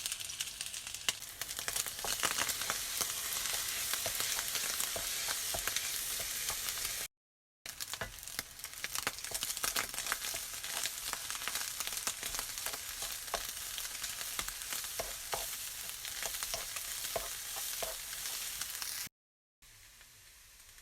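Food sizzling in a hot frying pan, with frequent small clicks and scrapes as it is stirred. The sound breaks off for a moment twice, and after the second break, near the end, it is much quieter.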